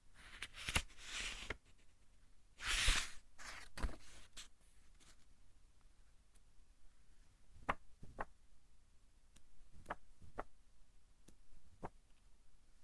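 Pages of a thick-paper book turned by hand. There are two papery swishes in the first few seconds, the second the loudest, then a scattering of light paper ticks and taps as the sheets settle and are handled.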